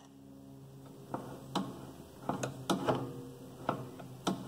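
Light metal clicks and knocks, about eight in irregular succession, from a wrench and the feed handles being worked on a small bench drill press during spindle adjustment, over a faint steady hum.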